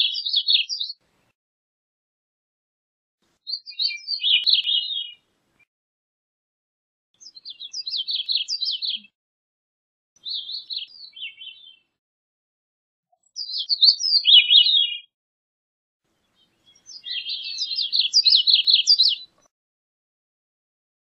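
Gray-cheeked thrush singing: a series of short, high song phrases of rapid notes, several falling in pitch, one about every three seconds with silence between.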